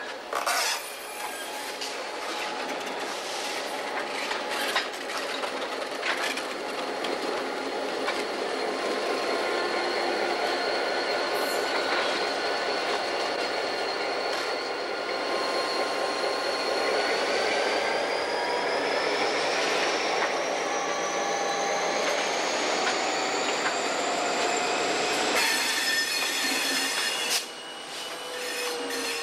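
Diesel locomotives of a coal train rolling slowly past, with their wheels squealing against the rail in several high tones that slowly rise in pitch over the second half. Near the end a louder rush of noise lasts about two seconds and cuts off suddenly.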